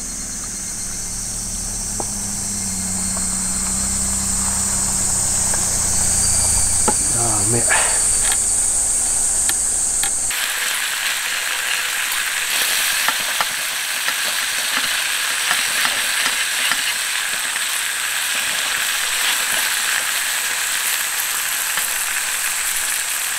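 Beef steaks sizzling on a hot iron griddle plate, a dense crackling hiss that starts abruptly about ten seconds in. Before that, a steady high insect chorus over a low rumble.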